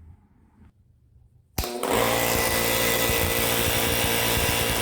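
Impact wrench running on the wheel's lug nuts. It starts about a second and a half in, runs steadily for about three and a half seconds and cuts off suddenly.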